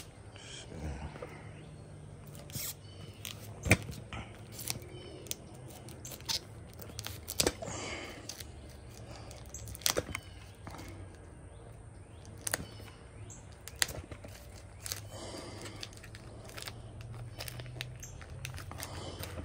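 A tape-wrapped cardboard mailing tube being handled and cut open with a small blade: scattered sharp clicks and short scraping rustles, over a low steady hum.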